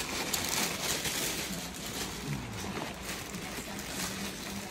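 Clear plastic bag and packing paper crinkling and rustling as hands dig into a boot box to pull out a boot.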